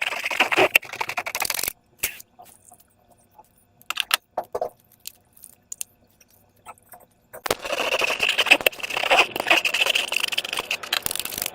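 Slime being handled, with dense crackling and small popping clicks. The crackling comes in two stretches, at the start and again from a few seconds before the end, with only scattered single clicks in between.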